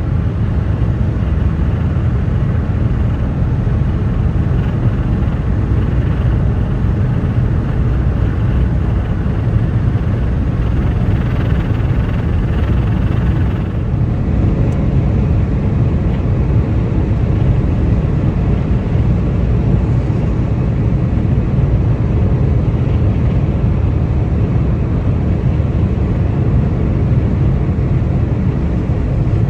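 Steady road noise of a car driving on a wet motorway: tyre hiss and engine drone, with a slight dulling of the higher hiss about halfway through.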